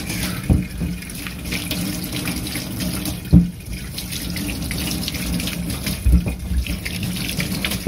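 Tap water running steadily into a sink while hands rub something under the stream, with a few knocks; the loudest comes about halfway through.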